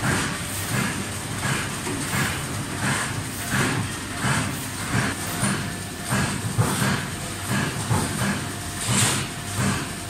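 Cable tray roll forming machine running: its forming rolls, drive chains and perforated steel strip make a steady mechanical noise with a regular clacking about every two-thirds of a second, over a faint steady high whine.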